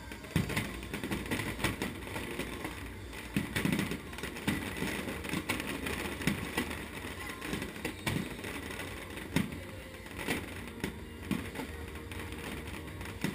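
Aerial fireworks shells bursting overhead: a string of sharp bangs, roughly one a second, with crackling in between.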